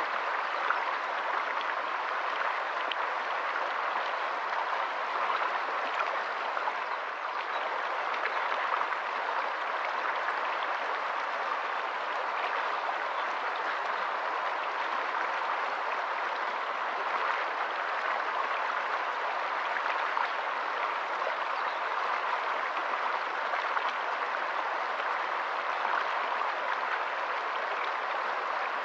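Shallow rocky stream running over stones and small riffles: a steady splashing rush of water.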